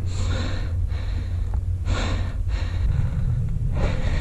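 A person breathing hard, three heavy breaths about two seconds apart, over a steady low rumble.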